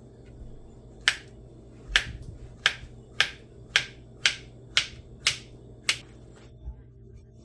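A run of nine sharp clicks or taps at an even pace, a little under two a second, which then stop.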